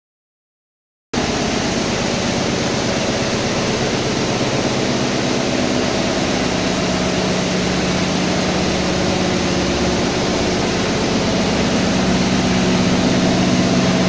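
Industrial chestnut microwave drying tunnel machine running: a steady machine hum with a constant even rush of fan noise, starting abruptly about a second in.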